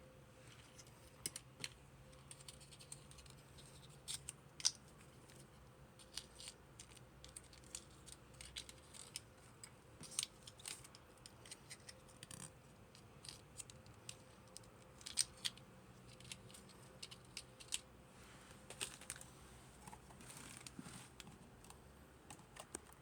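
Toy packaging being handled and opened: scattered sharp clicks and snips at irregular intervals, faint overall.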